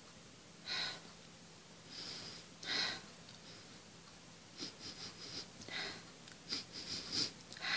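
A person's soft breathy sounds: a few short puffs of breath, spaced out at first, then quicker ones bunched together in the second half.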